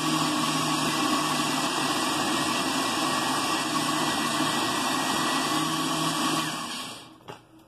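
A steady machine hum from an electric motor running. It fades away about seven seconds in, with a soft knock as it dies down.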